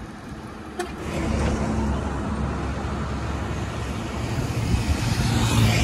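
Road traffic on the highway alongside: steady engine and tyre noise, with a passing vehicle growing louder near the end. A single sharp click about a second in.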